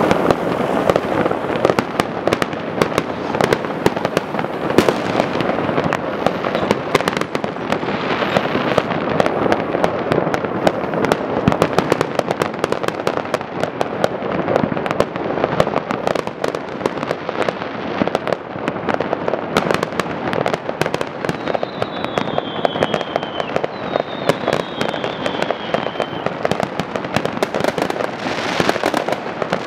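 Many fireworks and firecrackers going off at once: a dense, unbroken crackle of bangs and pops. Two short falling whistles come a little past the middle, and a louder hissing burst comes near the end.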